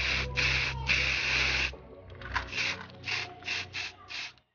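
Spray paint hissing out of a nozzle in bursts: a few quick puffs and one long spray, then a run of short puffs.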